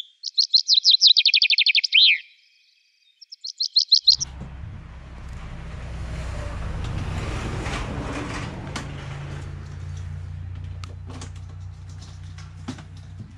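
A songbird singing two phrases of rapid, high, repeated trilled notes, the second one short. After about four seconds it gives way to a low steady hum, with scattered clicks and rustles as bags are fastened onto a motorcycle.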